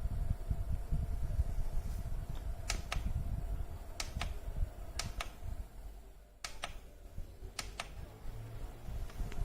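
Philips HU2716/10 humidifier's fan running with a steady hum over a low rumble, while five pairs of sharp clicks come about a second apart in the middle of the stretch.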